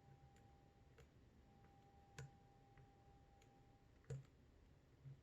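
Faint, uneven clicks of a lock pick working the pins of a Mul-T-Lock MT5+ high-security cylinder, about seven in all, the loudest about two seconds in and about four seconds in, over a faint steady hum.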